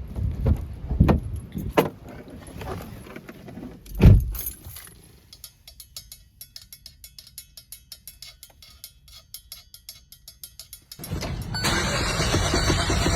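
Car engine being cranked in several short attempts that don't catch, followed by a run of quick faint ticks; about eleven seconds in a loud steady noise starts abruptly.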